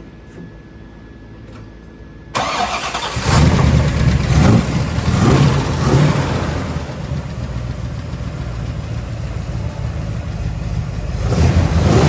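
Cold start of a 1968 COPO Chevrolet's 427 big-block V8. It starts about two seconds in and revs up and down loudly for a few seconds, then settles into a steady idle, with another brief rise in revs near the end.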